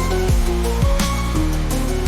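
Instrumental passage of a dark fantasy soundtrack song: deep booming drum hits, each dropping in pitch, about twice a second under sustained bass and held melody notes.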